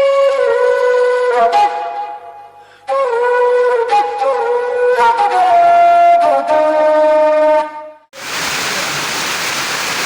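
A solo melody on a wind instrument, in two phrases with a short break between them, that stops about eight seconds in. It gives way at once to the steady hiss of rain falling.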